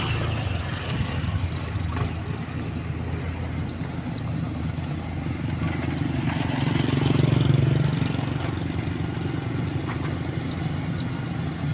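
Diesel engine of a 120K motor grader running steadily, growing louder for a couple of seconds past the middle before settling back.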